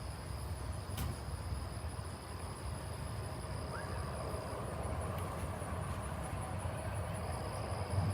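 Steady high-pitched insect chirring, a thin pulsing trill, over a low steady rumble.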